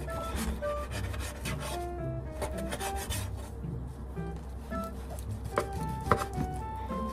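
Repeated rasping, scraping strokes of food being prepared on a board, with a few sharper knocks about 5.5 and 6 seconds in. Light background music of short, separate melody notes plays throughout.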